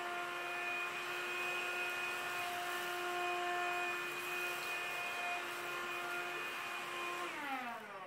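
CLEANmaxx cordless cyclone vacuum cleaner running with a steady whine. About seven seconds in it is switched off, and its pitch falls as the motor spins down.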